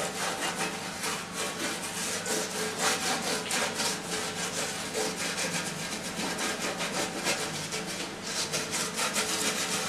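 A baking tray being greased with oil, rubbed over in quick repeated back-and-forth strokes that make a steady scraping sound.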